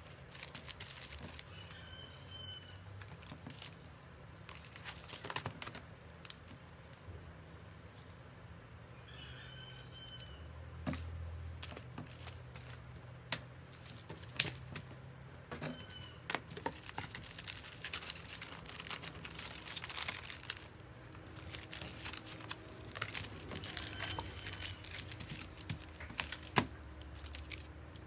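Plastic bubble mailers and clear packaging sleeves being handled: crinkling and rustling, with scattered light taps and clicks as they are laid down and filled.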